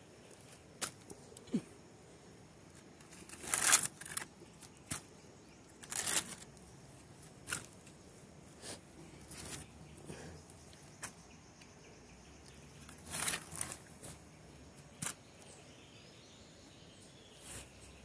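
Intermittent rustling and scraping as loose soil is worked and pressed by hand around newly planted pineapple crowns, in short swishes with a few small clicks, the loudest a few seconds in and again past the middle.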